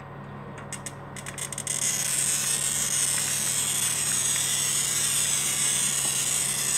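Glass cutter's wheel scoring a pane of glass: a few ticks as the wheel sets down on the glass, then a steady hissing scratch as it is drawn along the score line.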